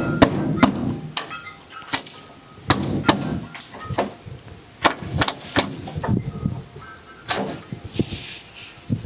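A wooden shipping crate being knocked and pried apart: a dozen or so sharp, irregular knocks and cracks, some followed by a brief metallic ring.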